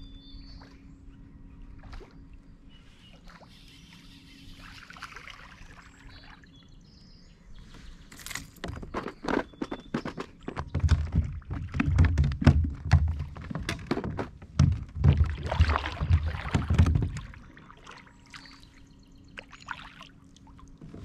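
Knocks and thumps against a plastic kayak hull, with some water sloshing. A dense flurry of them runs for several seconds in the second half, and heavy low thumps are the loudest part.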